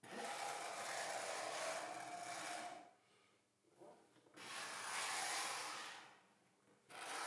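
A metal dial-indicator jig sliding along an aluminium miter channel on a plywood table-saw top, three slow strokes of rubbing, each about two seconds long, as the fence is checked for parallel with the miter channel.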